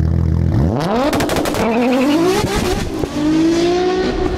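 Car engine revving hard from a low idle, its pitch climbing twice with a drop between, with a rapid run of crackling pops about a second in, then holding a steady note.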